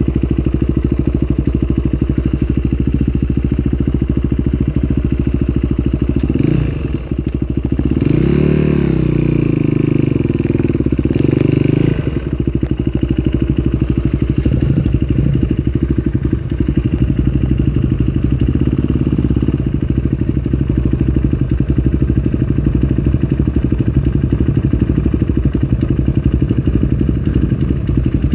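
Dirt bike engine running steadily, revved up and down a few times between about six and twelve seconds in.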